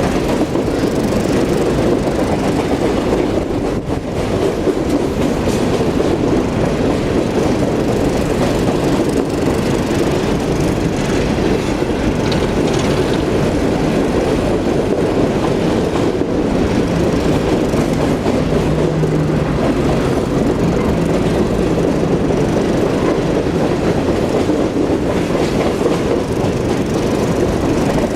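Empty coal hopper cars of a freight train rolling past steadily: a continuous rumble and clatter of steel wheels on the rails.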